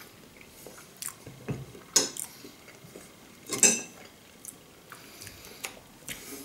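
A metal spoon scraping and clinking against an opened tin can of pâté, a few short scrapes and taps, the loudest about three and a half seconds in.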